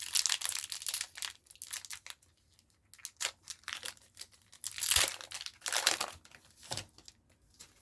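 Foil Pokémon card booster pack wrapper crinkling and being torn open, in a run of irregular rustling bursts; the loudest comes about five seconds in.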